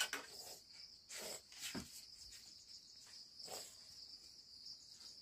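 Insects trilling steadily at a high pitch, with a few soft knocks and clinks of steel plates being handled.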